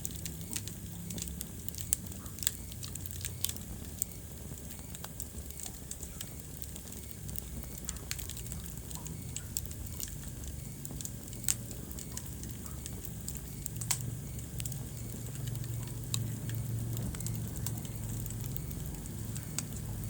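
Wood fire burning in a fireplace: a low steady rumble of flames with irregular sharp crackles and pops from the burning logs.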